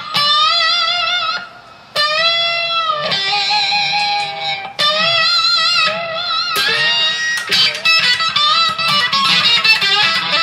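Loud acid-rock electric guitar solo on a Les Paul-style guitar through a Marshall amp. Long held notes with wide vibrato and bends, a brief break about a second and a half in, and quicker runs of notes near the end.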